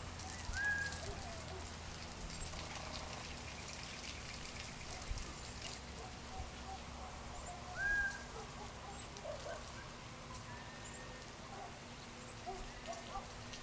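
Birds calling outdoors: two short whistles that rise and then level off, one about a second in and one about eight seconds in, amid scattered soft chirps, over a faint steady low hum.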